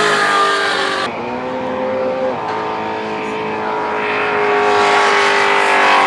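V8 engines of cars doing powerskids, each held at high, steady revs with the rear tyres spinning in smoke. The sound changes abruptly about a second in and again after about two and a half seconds as one car's skid gives way to another's.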